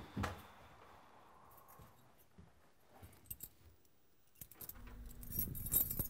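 A bunch of keys jangling and clicking at a door lock, starting faintly and getting much louder about four and a half seconds in. A soft thump comes just after the start.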